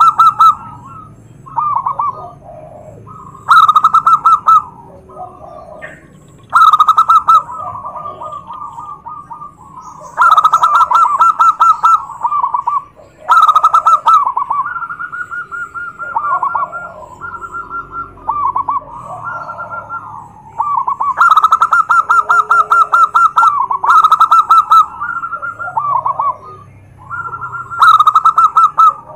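Zebra dove (perkutut) cooing: loud runs of fast, pulsing coos come every few seconds, with softer coos between. It is the male's song that rival zebra doves answer.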